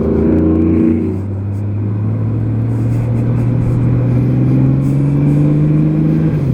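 2003 Honda Gold Wing's flat-six engine pulling under way, its pitch rising slowly and steadily for several seconds, then dipping at the very end.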